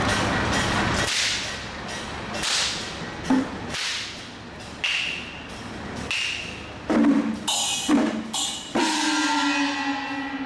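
Chinese procession percussion: drums and cymbals playing, loud and dense at first, then dropping after about a second to scattered sharp strikes, some with a ringing tone, and a busier flurry of strikes near the end.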